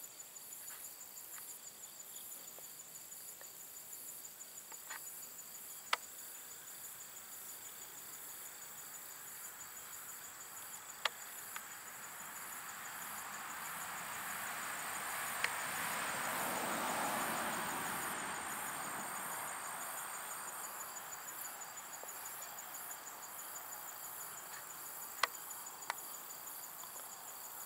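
Crickets trilling steadily in a high, evenly pulsed chorus. A rushing sound swells and fades over several seconds in the middle, and a few sharp clicks come through.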